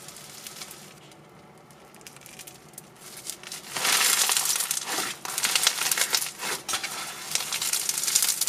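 Crunchy white-glue floam slime packed with foam beads, crackling and crunching as hands stretch and squeeze it. The crackling is faint at first, then loud and dense from about four seconds in as the slime is pressed together.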